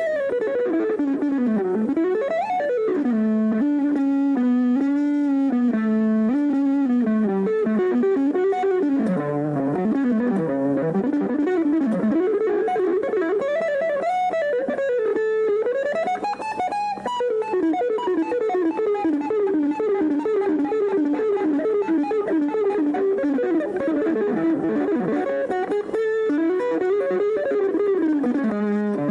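Solo plucked-string instrumental music, likely an electric guitar, playing a single melodic line with wide sliding pitch bends, vibrato and fast runs.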